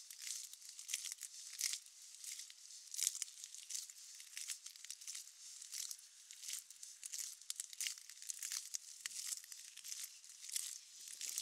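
Rain falling in a steady hiss, with footsteps on wet ground crackling at a walking pace, about every half second to two-thirds of a second.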